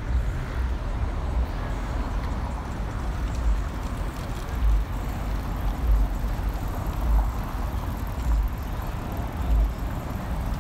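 City street noise with cars passing, over dull low thumps about every second from the handheld camera jolting with each step of the walk.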